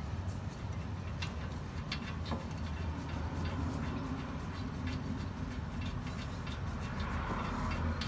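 A few light metallic clicks from hand work on the front wheel hub bearing's mounting bolts, over a steady low hum.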